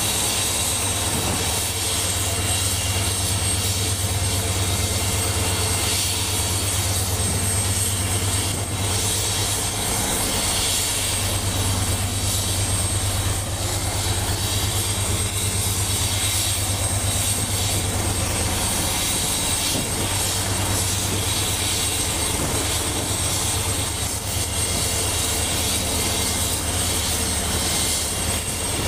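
MQ-8B Fire Scout unmanned helicopter running steadily: a low rotor and engine hum with a thin, high turbine whine over it.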